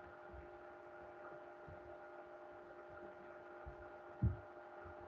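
Faint steady electrical hum made of several steady tones, with one short low thump a little past four seconds in.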